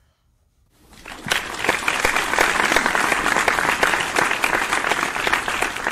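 Crowd applause, many hands clapping densely, swelling in about a second in and holding steady.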